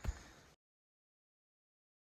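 A single low thump just after the start, then the sound cuts out to total silence.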